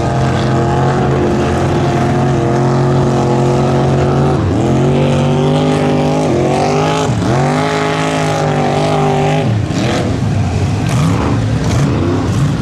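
Lifted Dodge Ram mega truck's engine running hard at high revs as it drives through a mud pond, the pitch holding steady, then dropping and climbing back about three times around the middle before breaking up near the end. Its huge tires throw mud and water the whole way.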